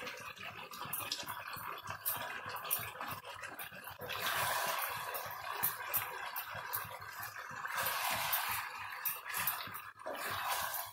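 Chicken pieces and ground nut pastes sizzling steadily in oil and ghee in a pan on high flame while a wooden spatula stirs them, with scattered scrapes and clicks of the spatula against the pan. The sizzle grows louder about four seconds in.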